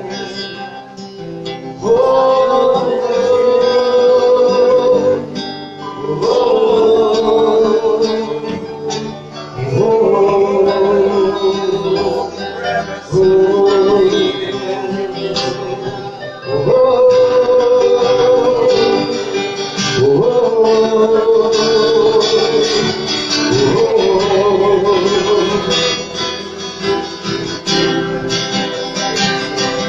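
Worship music: guitar with a voice singing long held, wavering notes in phrases of a few seconds each.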